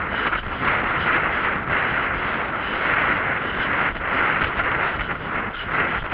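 Wind buffeting a rider-mounted camera's microphone as a horse canters across grass, a rushing noise that swells and dips, with the horse's hoofbeats underneath.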